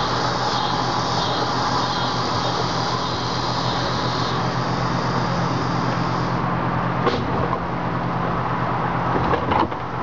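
Two 24-volt wheelchair motors driving a Dalek prop: a steady electric motor hum and whir. A higher hiss in the sound drops away about six seconds in, and a few sharp clicks follow near the end.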